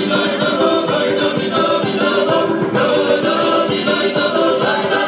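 Georgian folk dance music: several voices singing together over a steady beat.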